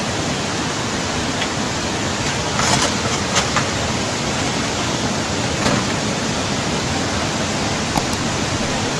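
Steady rushing noise of a fast floodwater torrent, with a few brief faint knocks.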